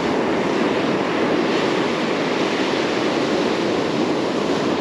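Surf breaking and washing up a sandy beach, a steady rushing noise, with wind buffeting the microphone.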